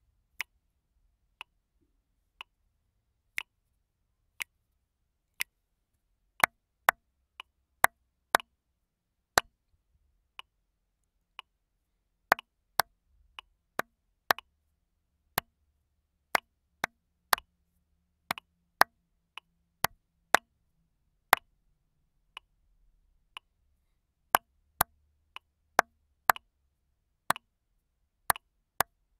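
A rhythm exercise clapped in time against a steady click about once a second. For the first six seconds only the beat sounds. Then sharp claps come in an uneven pattern, some on the beat and some between beats.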